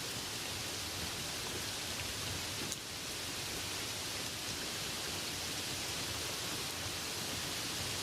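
Light rain falling steadily, an even hiss, with a single faint tick a little under three seconds in.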